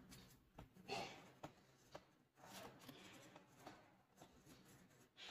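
Faint scratching of a pen writing on paper, with a few small, scattered strokes in near silence.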